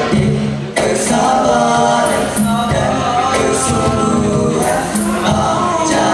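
Nasyid performance: several male voices singing together over hand-drum percussion. The music breaks off briefly less than a second in and comes back in sharply.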